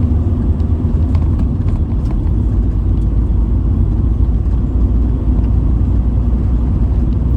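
Steady low rumble of a campervan on the move: engine and road noise.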